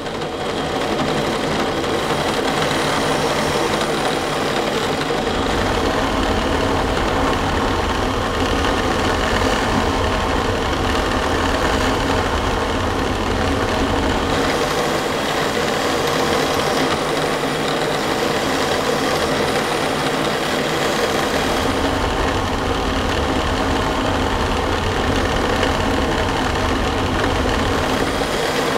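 Drill press running with a sanding drum in its chuck, grinding the worn face of a steel valve rocker arm from a Yanmar diesel tractor engine to resurface it. A steady motor hum, with the low end shifting a few times as the arm is worked against the drum.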